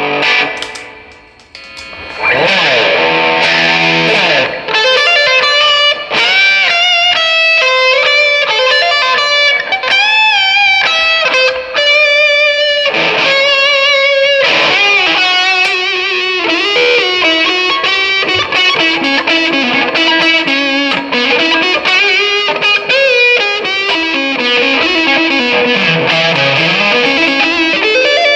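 Gibson 1957 reissue electric guitar playing a distorted lead through a Marshall DSL-1 amp: single sustained notes with string bends and vibrato, after a brief dip in sound about a second in. Near the end one note slides a long way down in pitch and back up.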